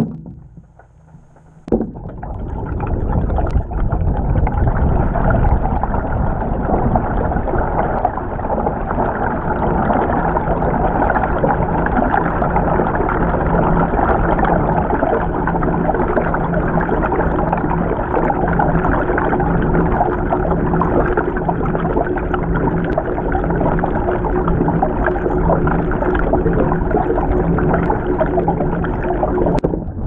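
Water churning and sloshing in a Samsung top-loading washing machine's drum during the wash, heard muffled from under the water, with a low machine hum pulsing beneath it. A thunk about two seconds in, as the churning starts up.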